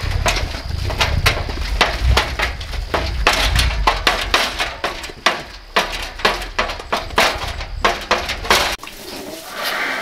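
Round metal hay feeder ring clanging and rattling again and again as a cow with its head stuck through it drags and shakes it, over a steady low rumble. The clanking cuts off about nine seconds in.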